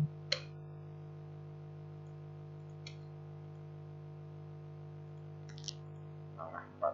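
Computer keyboard and mouse clicks as text is edited: three sharp isolated clicks a few seconds apart, then a softer quick cluster of taps near the end, over a steady low electrical hum.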